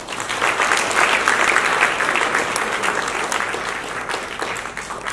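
Audience applauding, loudest about a second in and then slowly dying down.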